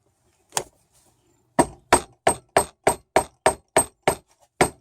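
Hammer blows driving a glued wooden dowel into a hole in a wooden tiller: one knock, then a run of about ten sharp knocks at roughly three a second. The dowel is a tight fit, which the worker later says opened a crack in the wood.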